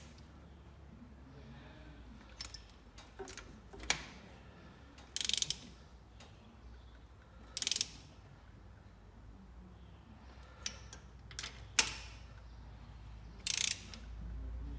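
Ratchet wrench on an extension clicking in three short bursts, with a few single sharp clicks and knocks between them. The wrench is snugging new spark plugs into the cylinder head, crushing their sealing washers.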